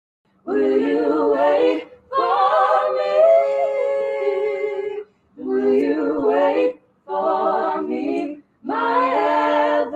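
A mixed a cappella group singing in close harmony, held chords in phrases of one to three seconds with short breaks between them.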